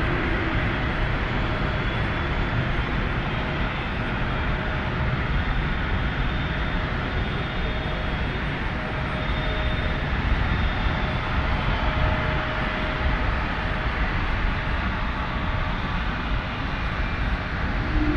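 Airliner engines running steadily: a broad, even rumble with a faint high whine, without rising or dying away.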